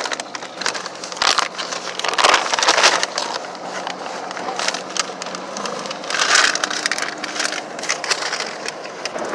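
Crunchy chewing of a fried chicken sandwich, with louder crunches about a second in, from about two to three seconds, and about six seconds in.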